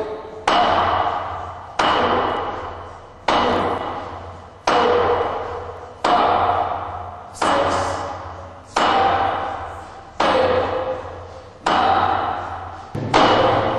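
Hand-conditioning strikes against a hard surface, ten sharp blows about one every second and a half, each ringing out and fading before the next.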